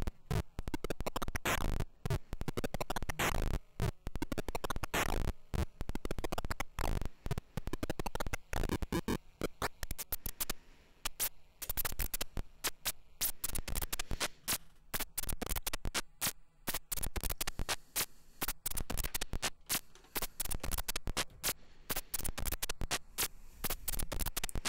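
Mystic Circuits Vert Eurorack module used as a standalone noise source, putting out a harsh, irregular stream of crackling clicks and stuttering noise that changes density as its knobs are turned. The glitches come from quirks of the circuit, with an LFO patched into its FM input and no audio going into it.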